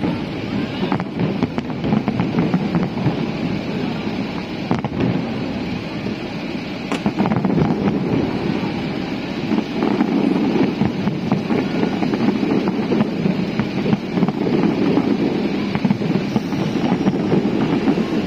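Fireworks display going off: a continuous low rumble of bursts with scattered sharper bangs and cracks.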